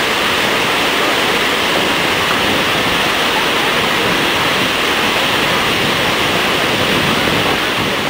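Large waterfall in heavy flow, a steady, loud rush of water plunging over rock.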